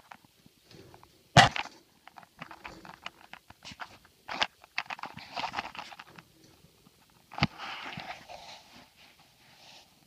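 Handling knocks and rattles on a wire cage trap, with rustling and crackling in between. There are three sharp knocks, the loudest about a second and a half in and the others near four and a half and seven and a half seconds.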